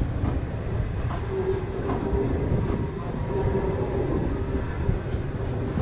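Streetcars rolling slowly along the track, one towing the other: steel wheels rumble on the rails with scattered clicks from the rail joints. A steady whining tone holds from about a second in until near the end.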